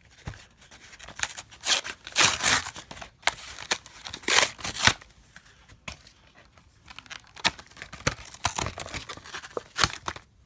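Trading card blister pack being opened by hand: the plastic and cardboard packaging tears and crinkles in several short bursts, loudest about two and four seconds in, followed by lighter clicks and rustles.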